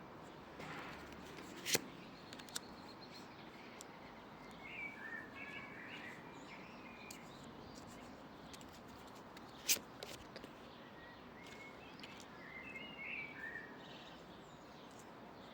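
Birds chirping in short phrases over a faint, steady outdoor hiss, with two sharp clicks, one about two seconds in and another near ten seconds.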